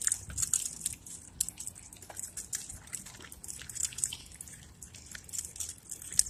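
Irregular crackling and scuffing from walking across gritty asphalt with a handheld phone, over an uneven low rumble of wind on the microphone.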